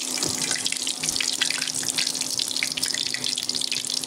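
Hot oil sizzling and crackling steadily around thick chana dal fritters deep-frying in a steel kadai, as the golden, fully fried fritters are lifted out with a wire skimmer.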